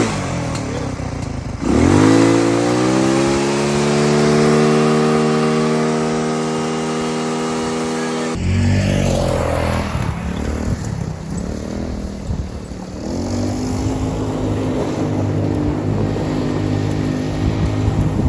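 Go-kart engine, just brought to life with a jump start, revved in neutral. Its pitch climbs quickly about two seconds in and holds high for several seconds. After an abrupt change about eight seconds in, it runs at a lower, steady speed and picks up again near the end.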